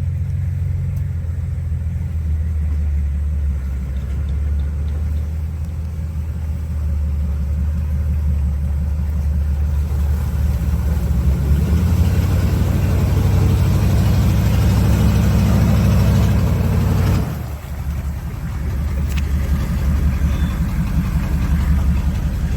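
Off-road vehicle engine running steadily at low revs, then revving harder for about five seconds from around ten seconds in, cutting back suddenly near the end and settling again, as the vehicle works through deep mud.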